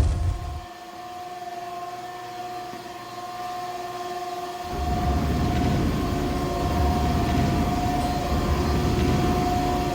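Machine-room ambience: a steady, high mechanical hum, with a deep rumble that swells in about halfway through and keeps going.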